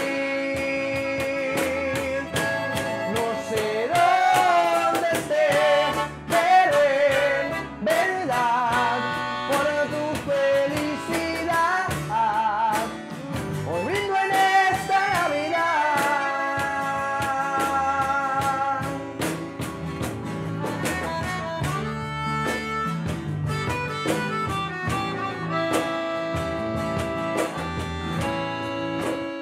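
Instrumental break of an acoustic norteño ballad: a Gabbanelli button accordion plays melodic lines over an acoustic guitar, bass guitar and cajón.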